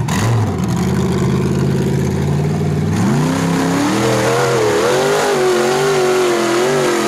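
Rock bouncer buggy's V8 engine running at steady revs, then revving up hard about three seconds in and held at high revs with the pitch wavering up and down.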